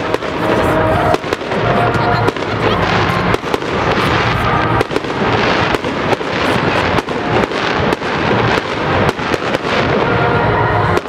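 Aerial fireworks bursting overhead: a rapid, irregular run of sharp bangs, several a second, over a continuous crackle.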